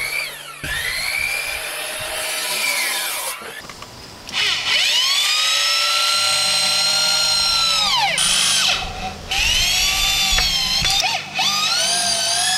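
Power drill driving screws into a 2x4 wood frame: several runs of a motor whine that rises in pitch, holds steady for a few seconds and winds down, with short pauses between runs.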